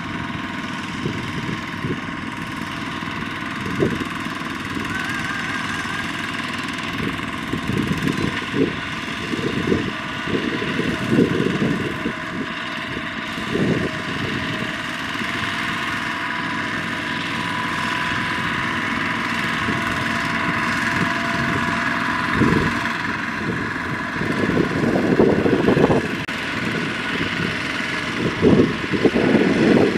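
Single-cylinder diesel engines of two-wheel walking tractors running steadily while hauling trailers loaded with rice sacks through a muddy paddy, with irregular low surges that rise and fall.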